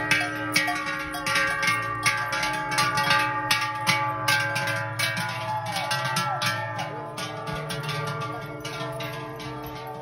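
Cowbells ringing and clanging on a herd of cows walking along the road, many bells sounding at once with frequent sharp strikes, growing a little fainter toward the end.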